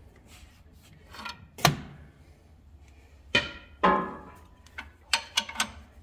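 Metal tools knocking and clanking on the alternator and its bracket as the alternator belt is tensioned and the adjustment bolt tightened. There are several sharp clanks, the loudest two near the middle with a short metallic ring, and a quick run of smaller knocks near the end.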